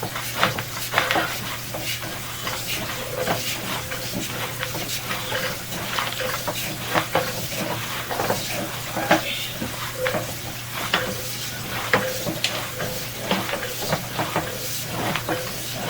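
Flush water running down a drain pipe past a sewer inspection camera: a crackling rush with irregular clicks, over a steady electrical hum.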